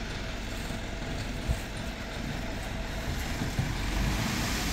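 Light dump truck's diesel engine running steadily with its tipper bed raised, unloading sand. A hiss grows louder near the end.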